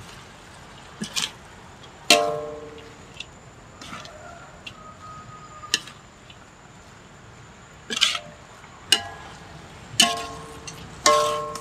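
Metal spatula stir-frying leafy greens in a metal wok, scraping and striking the pan about half a dozen times; each strike makes the wok ring briefly.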